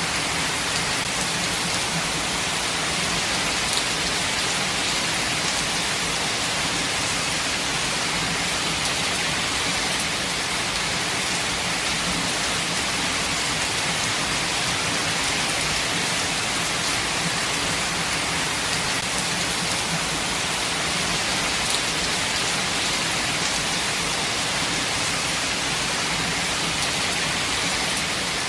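Steady rain falling in a forest, a constant even hiss with occasional faint drop ticks.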